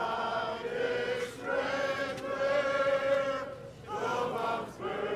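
A choir singing slow, long held notes in phrases, with short pauses between them.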